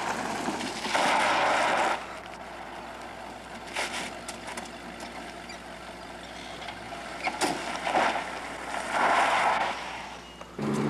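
Car sounds in a gravel lot: two loud bursts of rushing noise about a second long, near the start and near the end, and a few sharp knocks in between, one of them a car door being shut.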